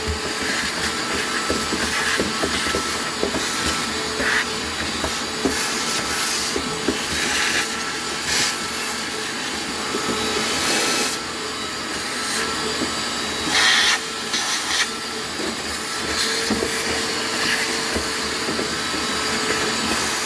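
Shop vacuum running steadily with a faint motor whine while it vacuums out a refrigerator's freezer, with a few brief louder rushes of air as the nozzle sucks.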